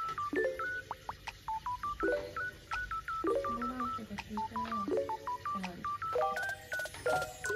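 Background music: a quick, hopping melody of short beep-like electronic notes over lower plucked notes.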